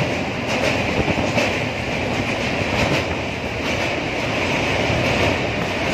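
Passenger train running over a steel truss bridge, heard from inside the coach at the window: a steady rumble and rattle of wheels on the rails with irregular sharper clacks, more of them in the first half.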